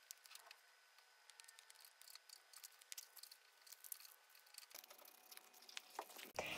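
Near silence with faint clicks and rustles of hands handling paper and sticky tape, and a few small snips of scissors cutting paper and tape.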